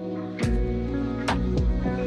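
Background music with held chords and a slow, steady beat, a little over one beat a second.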